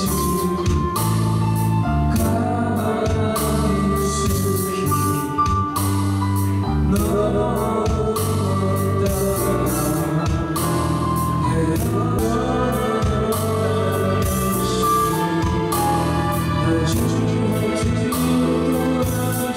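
Karaoke: singing into a microphone over a backing track.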